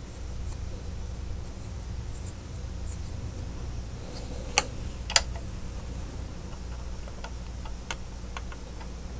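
Small parts of a 1/18 diecast model car being handled and fitted: two sharp clicks about half a second apart near the middle, then a few lighter ticks, over a steady low hum.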